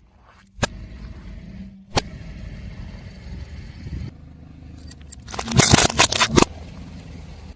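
Car tyre rolling over and crushing brittle objects: two sharp cracks, then a loud burst of crunching and cracking about five to six and a half seconds in, over the low rumble of the car.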